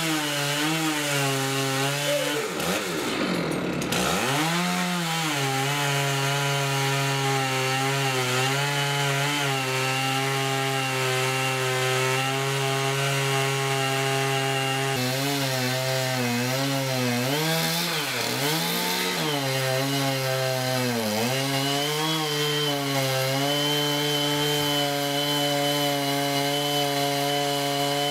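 STIHL chainsaw cutting into the trunk of a dead white fir at high revs, with a steady engine note. The pitch sags and recovers a few times, around 3 seconds in and again in the middle, as the chain loads up in the wood.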